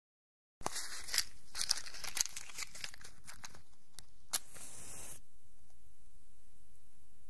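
A wooden match scraping and rasping against a matchbox striker, with a run of sharp clicks over several seconds and one sharp crack about four seconds in, then it dies down to a quiet hiss as the match burns.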